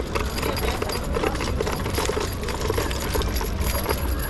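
Scooter riding over pavement: a steady low wind rumble on the microphone, with a continuous light rattling and clinking from the scooter.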